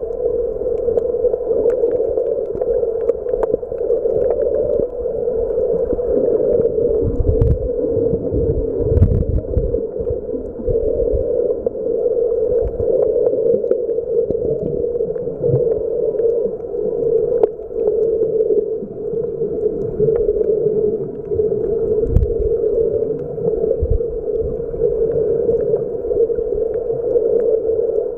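Muffled underwater noise from a camera submerged in water: a steady dull rushing with a few low thumps, strongest about a third of the way in and again near 22 and 24 seconds.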